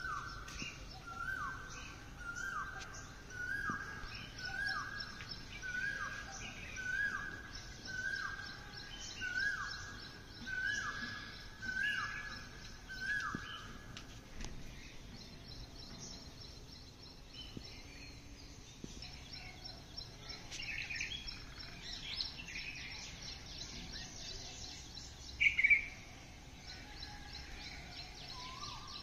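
Asian koel calling a series of about a dozen evenly spaced notes, roughly one every three-quarters of a second, that stops about halfway through. Smaller birds chirp higher and more softly throughout, with a short louder call near the end.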